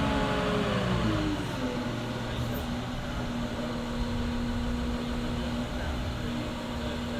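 Diesel engine revs falling over the first second or so, then running steadily at idle with a low, even hum.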